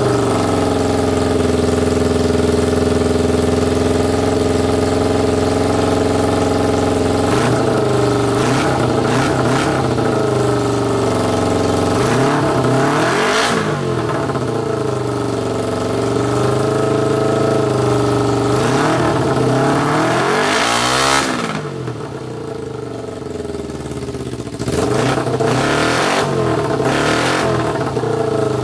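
Kawasaki EX250 (Ninja 250) parallel-twin engine running through a makeshift single exhaust pipe: steady at first, then revved up and down repeatedly from about seven seconds in, and near the end it falls quieter for a few seconds before picking back up. It runs rough, which the owner puts down to carburetors that need more cleaning.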